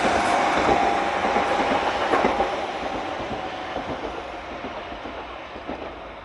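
Keihan 600-series electric train running over the level crossing and moving away, its wheel and running noise fading steadily.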